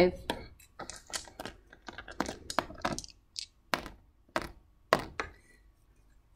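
Small plastic dice numbered 0 to 9 clicking and clattering as they are handled and rolled, then three sharp taps a little over half a second apart as they are set down one at a time.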